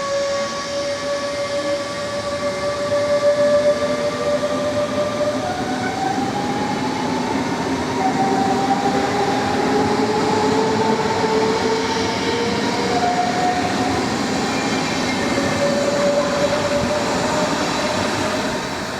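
DB class 424 S-Bahn electric multiple unit running, its electric drive whining in several tones over the rumble of the train. The tones hold steady at first, then glide upward in pitch from about a third of the way in.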